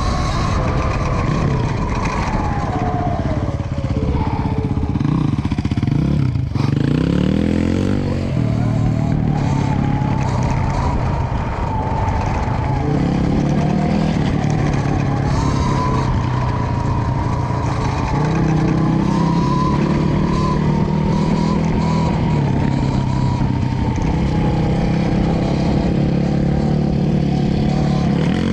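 E-Ride Pro SS electric dirt bike's motor whining under way off-road, its pitch falling as the bike slows about six seconds in and rising again as it speeds back up, over a steady rush of wind and tyre noise.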